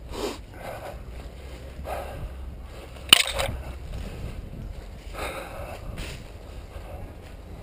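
Rustling steps through brush and dry leaves over a low rumble of wind on the microphone, with one sharp crack about three seconds in.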